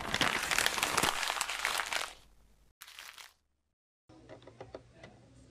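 A crackling, hissy intro sound effect for an animated splash logo, loud for about two seconds and then fading, with a short second burst near the middle. After a moment of silence, faint room tone with a few small clicks.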